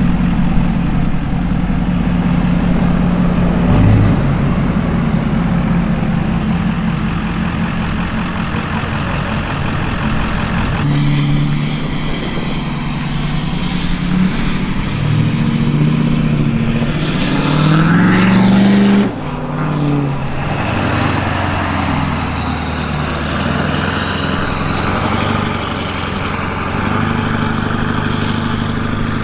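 Engines of lifted pickup trucks running as they drive past, one revving up with a rising pitch about halfway through. Near the end a faint high whine climbs slowly over the engine sound.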